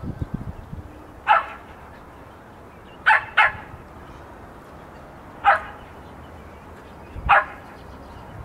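A dog barking in short single barks, five in all, two of them in quick succession about three seconds in.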